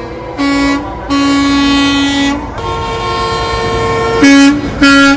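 Semi-truck air horns blowing in a series of held blasts: a short one, a long one about a second in, a long blast at a higher pitch in the middle, and two short, louder blasts near the end.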